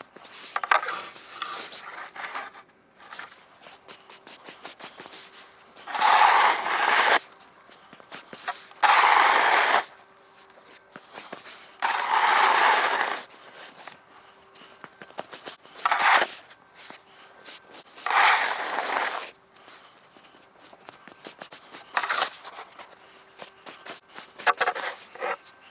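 Snow shovel scraping and pushing snow across pond ice in repeated strokes, each about a second long, with quieter shuffling between them.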